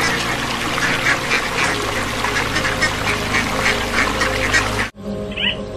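A flock of mallard ducks quacking, many short calls overlapping continuously. The calls cut off suddenly near the end, and a single short high call follows.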